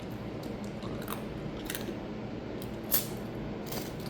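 Snow crab shell being cracked and pried apart by hand: a few short sharp cracks, the loudest about three seconds in.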